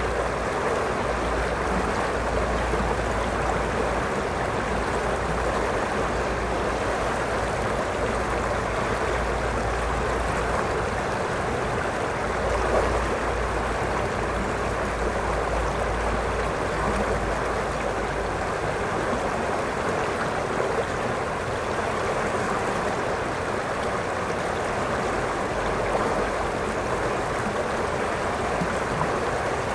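River water rushing steadily over a shallow, rocky riffle: a continuous, even rush of flowing water.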